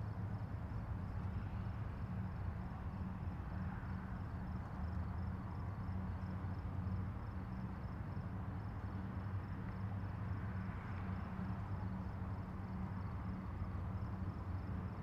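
Tugboat's diesel engine running steadily under load while towing, a low, even drone.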